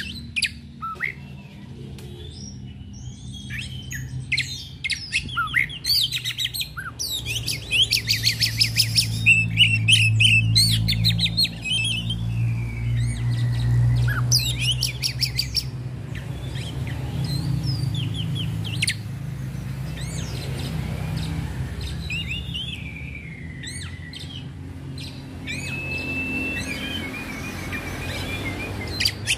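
Oriental magpie-robin in loud, full song: a long, varied run of whistles, rapid trills and sliding notes, ending on a held, wavering note. A low steady hum lies underneath.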